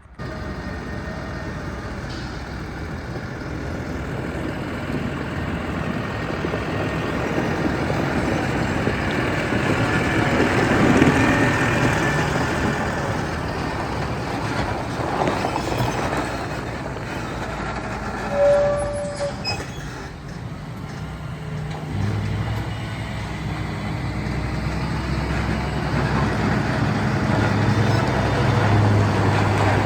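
Heavy farm vehicle engine running, with continuous mechanical noise; a short tone sounds about halfway through, and a deeper steady engine hum comes in about two-thirds of the way through.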